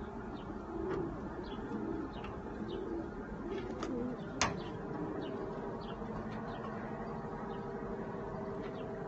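Domestic pigeons cooing, low repeated coos through the first half, with faint short high chirps throughout. A single sharp click sounds about four and a half seconds in.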